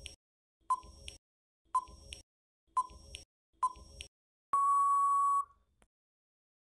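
Quiz countdown timer sound effect: five short electronic beeps about a second apart, then one long steady beep of about a second marking time up.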